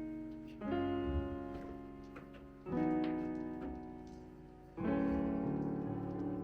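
Background music: slow piano chords, a new chord struck about every two seconds and left to ring out and fade.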